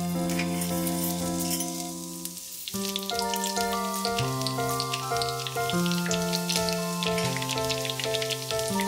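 Butter sizzling and crackling as it foams and browns in a small frying pan with a sprig of rosemary, a dense fizz of tiny pops, over gentle background music with sustained notes.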